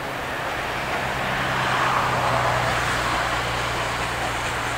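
Steam locomotive approaching at speed, its running noise swelling over the first two seconds and then holding steady, with a constant low hum beneath.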